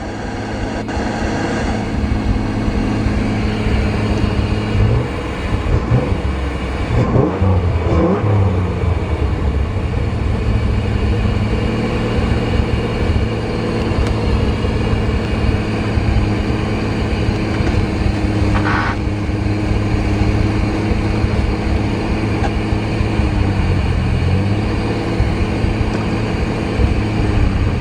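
Pontiac Fiero engine running, its pitch rising and falling around 6 to 8 seconds in and again near the end, as if under changing revs. There is a brief high squeak about 19 seconds in.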